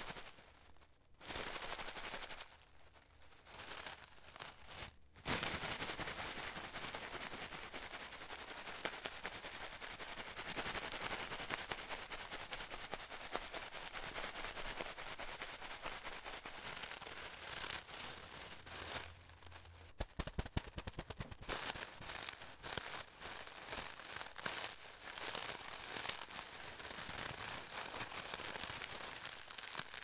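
A full bag of charcoal being handled, the lumps shifting and rubbing together inside the bag in a dense crackle of small clicks and rustles. It comes in short patches at first, runs on steadily from about five seconds in, and pauses briefly about two-thirds of the way through before a few sharper clicks.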